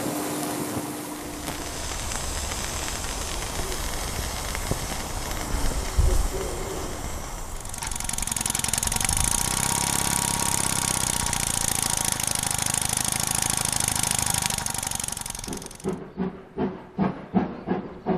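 Steam hissing steadily from a running RW-BL1K single-cylinder live steam engine and its boiler, with a low thump about six seconds in. The hiss gets louder and brighter about eight seconds in, then cuts off suddenly near the end, giving way to a quick rhythmic sound.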